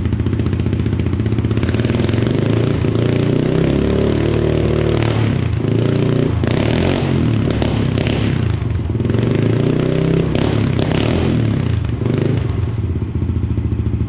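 2019 Yamaha TT-R 110's single-cylinder four-stroke engine running through an FMF PowerCore 4 exhaust, with the throttle opened several times so the revs rise and fall.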